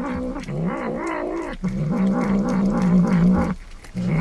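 Domestic cat's low, wavering, drawn-out vocalizing as it bites at hanging cured meat, with a long call in the middle and a brief break near the end.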